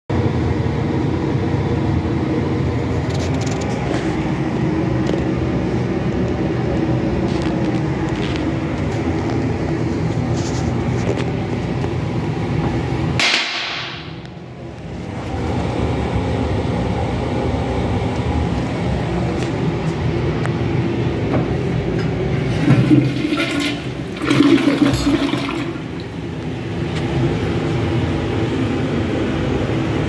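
American Standard two-piece toilet flushing, with water rushing and refilling steadily. The sound drops briefly about halfway through, and there are two louder surges of rushing water a little before the end.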